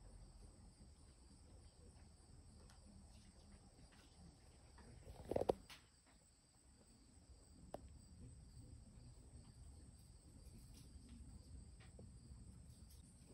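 Insects trilling steadily in a high, even drone. About five seconds in comes a single brief knock, the loudest sound, and a faint click follows a couple of seconds later.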